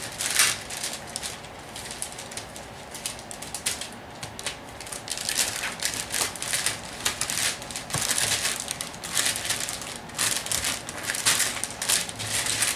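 Plastic wrapping around a new laptop crinkling and rustling as hands pull and fold it, in irregular spells that grow busier in the second half.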